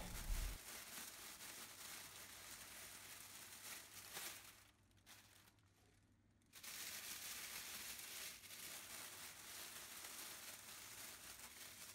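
Faint crinkling and rustling of a plastic roasting bag as hands set chicken thighs inside it, cutting out to dead silence for about two seconds midway.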